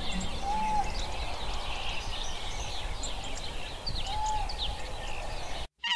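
Outdoor ambience of small birds chirping over a steady background hiss, with two short whistled notes, about half a second and four seconds in. It cuts off suddenly just before the end.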